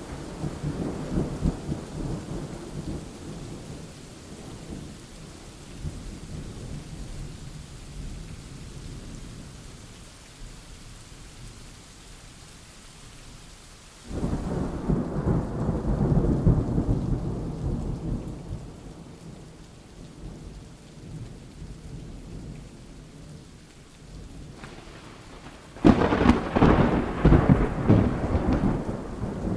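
Thunderstorm: steady rain with rolling thunder. A low rumble swells suddenly about halfway through and fades away over several seconds, and a sharp, loud thunderclap breaks in near the end.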